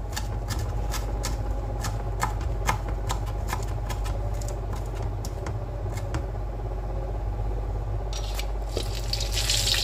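A kitchen knife chopping celery leaves on a plastic cutting board: irregular sharp knocks of the blade hitting the board, two or three a second, over a steady low hum. Near the end a hiss of shrimp frying in oil comes in.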